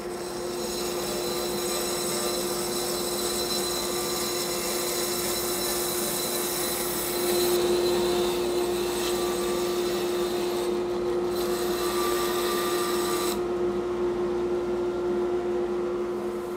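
Rikon 10-326 band saw running steadily, its blade cutting through a block of compressed cork to rough out a duck-decoy body. The high cutting hiss drops away about three-quarters of the way through while the motor hum carries on.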